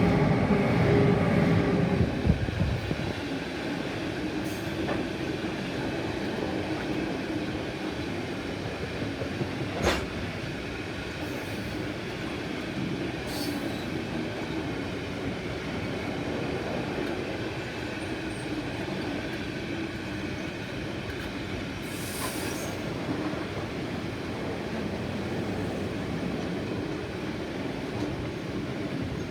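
DB Cargo iron ore freight train passing: loud for the first couple of seconds, then the steady rumble of the ore wagons rolling by. A sharp knock comes about ten seconds in, with brief high wheel squeals later on.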